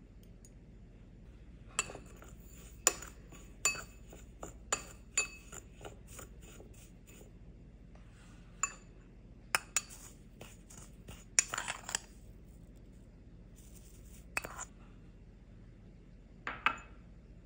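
A metal measuring spoon clinking against a ceramic bowl as spices are measured in and mixed: about fifteen sharp, irregular taps, with a quick cluster of clinks and scraping past the middle.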